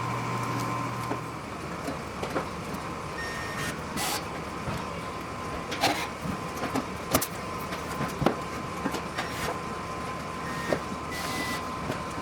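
Riveting on an aircraft wing skin: irregular sharp snaps, several seconds apart, over a steady hum and a faint high tone.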